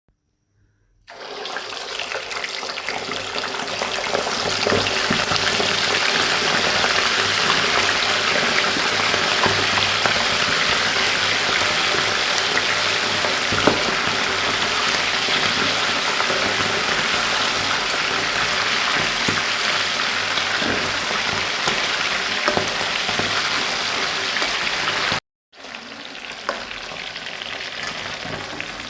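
Food sizzling steadily in hot oil in a pan, with occasional light clicks of a stirring utensil. It starts about a second in, cuts off abruptly near the end, then resumes quieter.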